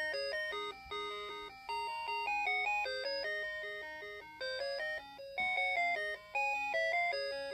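Pokémon cuckoo clock playing one of its built-in songs: a bright electronic chime-like tune over a repeating lower accompaniment, notes changing a few times a second.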